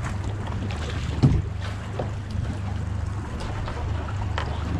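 Outboard motor running steadily at idle, with water and wind noise around the boat. A single sharp knock sounds about a second in.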